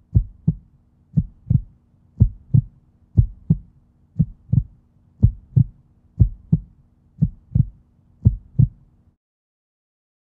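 Heartbeat sound effect: a steady lub-dub double thump about once a second, nine beats in all, stopping about nine seconds in.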